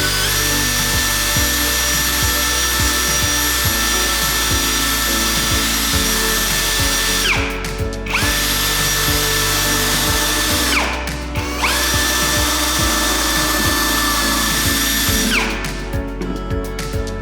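A small electric motor runs at a steady high whine in three stretches. Each stretch spins up and winds down, with the pitch falling as it stops, a little after 7 seconds in, near 11 seconds and near 15 seconds in.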